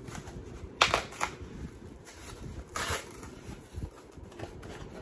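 Packaging rustling and crinkling as it is handled, with two louder crackles, one about a second in and one near three seconds.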